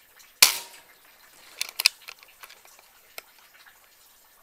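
PCP air rifle firing one shot about half a second in: a single sharp crack that fades quickly. A little over a second later comes a quick cluster of three or four sharp clicks, and one faint click near the end.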